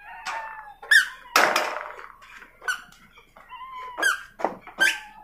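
Kittens mewing over and over in short, high, squeaky calls, each bending up or down in pitch. A brief noisy burst comes about a second and a half in.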